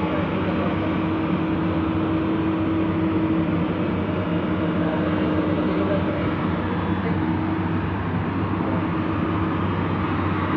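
Heavy diesel machinery engine running steadily, with a steady whine that fades out about eight seconds in.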